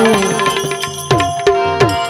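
Instrumental bhajan music without singing: tabla-style hand-drum strokes, the bass strokes bending down in pitch, over a held melody note. The drumming grows stronger about a second in.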